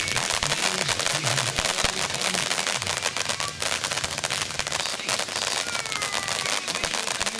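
Ground fountain firework spraying sparks with dense, rapid crackling throughout, from its crackling-star effect, with a couple of short, slightly falling whistles about six seconds in.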